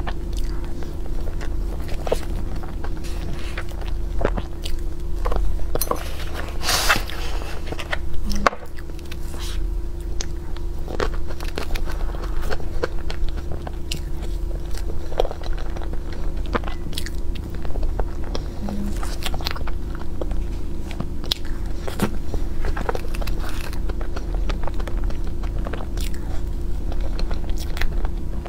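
Close-miked eating sounds of soft blueberry crepe cake: wet chewing and mouth noises with light clicks of a metal spoon, over a steady low hum.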